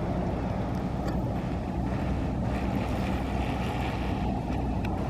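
Steady wind rumble buffeting the microphone, with a few faint ticks.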